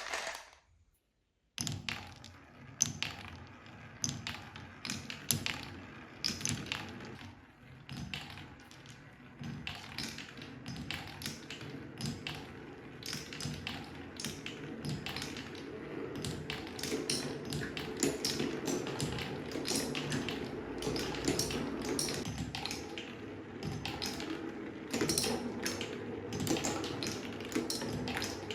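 Marbles running down wooden Quadrilla spiral and straight slopes: a dense stream of clicks and clacks as they hit the wood and each other, over a steady rolling rumble. The rumble thickens and grows louder about halfway through as more marbles crowd the track, after a brief silence at the start.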